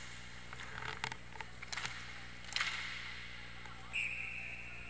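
Sharp clacks of sticks and puck during inline hockey play, then about four seconds in a referee's whistle blows one steady, high note, the signal that stops play.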